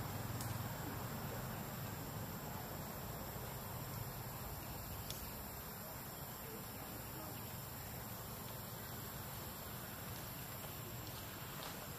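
Steady high-pitched drone of insects over a low background hum, with two faint clicks, the first just after the start and the second about five seconds in.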